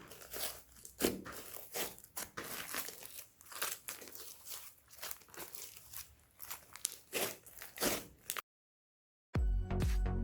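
Slime being squished and kneaded by hand, with irregular crackling, popping clicks from trapped air and mixed-in bits. It stops dead near the end, and after a brief silence electronic music begins.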